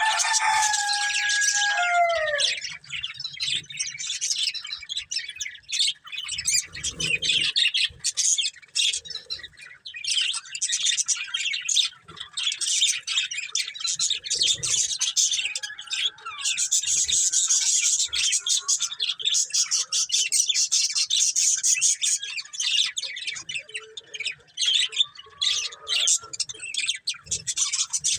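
Several budgerigars chirping and chattering in rapid, continuous high-pitched twitters, with a few falling whistles near the start.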